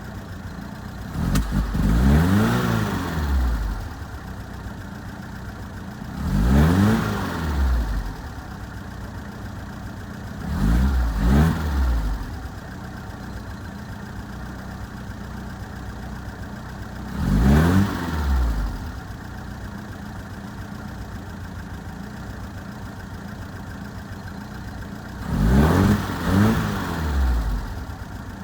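1978 Fiat 124 Spider's twin-cam four-cylinder engine idling roughly, blipped five times. Each rev rises and falls back to idle, and two of them come as a quick double rev.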